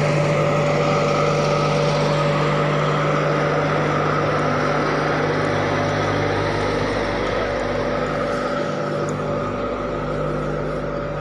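GE WDG4G diesel locomotive's engine running steadily while the locomotive stands still, a loud, even hum with a few constant tones, close by.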